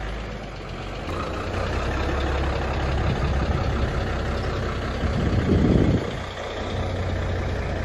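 Isuzu truck's diesel engine running at low speed as the truck is eased a short way forward, with a brief louder surge about five seconds in.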